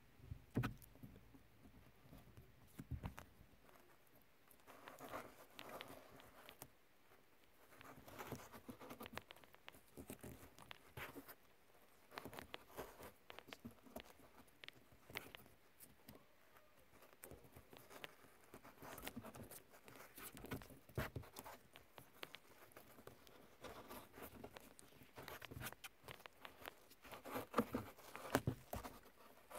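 Electrical tape being peeled off its roll and wrapped around wires and a plastic connector: faint, irregular crackling and rustling of the tape and of fingers handling it.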